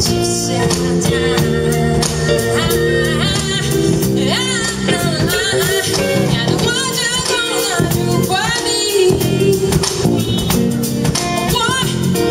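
Live band playing: a woman singing lead into a microphone over electric guitar, electric bass and a drum kit.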